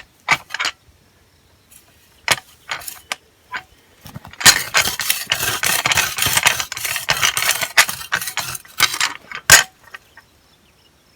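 Hand cultivating tool scraping through soil and weeds. A few separate scrapes come first, then about five seconds of quick, continuous scraping starting around four seconds in.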